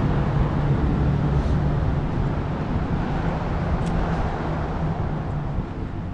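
Steady rumble of road traffic on the highway bridge overhead, slowly fading.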